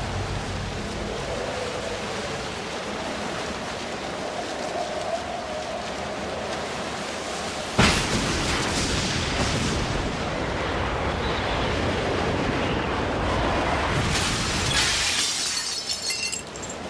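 Supernatural sound effects from a TV drama: a steady rushing, wind-like noise, broken about eight seconds in by a sudden loud crash or blast, with another surge of noise near fourteen seconds.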